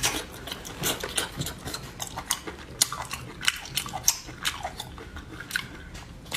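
Close-up eating sounds: a person biting and chewing spicy seafood, with irregular sharp crunches and clicks.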